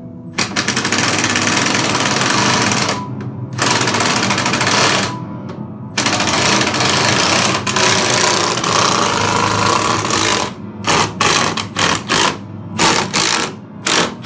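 Cordless power driver working screws on a piano: three long runs, then a string of short bursts near the end. Music plays underneath.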